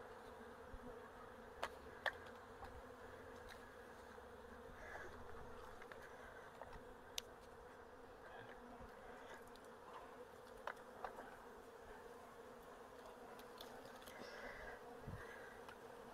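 Faint, steady buzzing of a honeybee colony cut out of its hive and lying loose on a sheet, with a few short, sharp ticks standing out.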